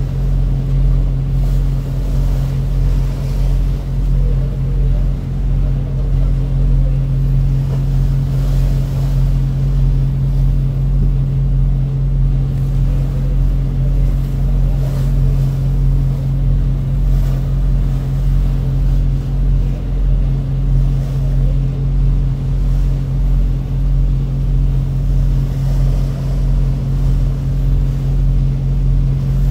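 Boat engine running steadily at constant speed, a loud low drone, with wind and water noise over it.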